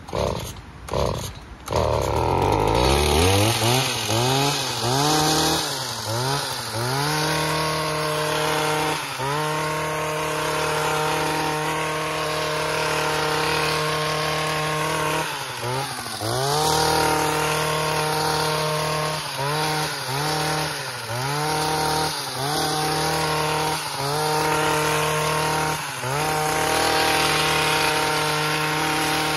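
Small two-stroke petrol garden power tool starting up and revving up over the first couple of seconds, then running at high revs. The revs drop briefly and climb back again and again as the throttle is eased and squeezed during cutting.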